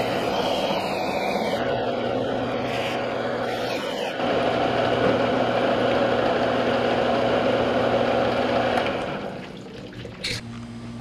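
Benchtop belt-and-disc sander running, with driftwood pressed against its sanding belt giving a steady rasping hiss over the motor's hum. The sanding gets louder about four seconds in and stops near the end, leaving the motor humming, with one short knock.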